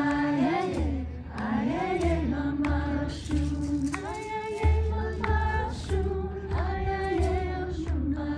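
Group singing a chant, mostly high voices, with long held notes that slide up and down between phrases, over a low musical accompaniment.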